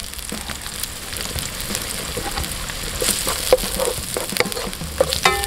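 Onions and chopped garlic sizzling in hot oil in a non-stick frying pan, the garlic sautéing toward golden. From about two seconds in, a wooden spatula stirring them knocks and scrapes against the pan now and then.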